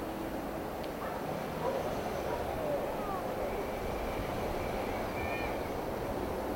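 City street ambience: a line of cars rolling slowly past, with a low murmur of voices from people standing along the pavement.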